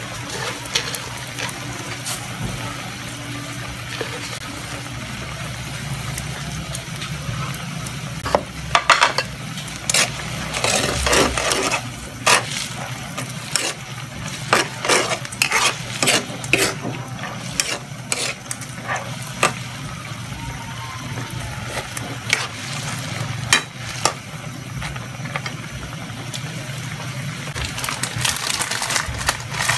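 Clams in a thick sauce simmering in a metal pan with a steady sizzle, stirred with a metal utensil that clicks and scrapes against the pan in quick runs through the middle and again near the end.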